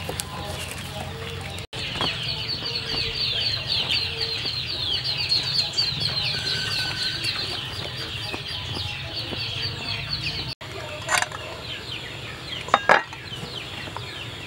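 Chickens clucking, with many short, high, falling calls in quick succession through the middle; a couple of sharp knocks come near the end.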